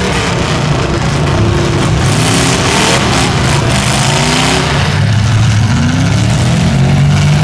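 Several demolition-derby pickup truck engines running and revving at once, their pitch rising again and again over a steady loud rush of engine noise.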